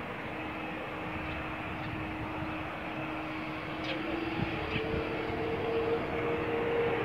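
Rolls-Royce Trent 1000 turbofans of a Boeing 787-8 running at low taxi thrust, heard as a steady hum with one held tone. About four and a half seconds in, the tone steps up in pitch and the sound slowly grows louder.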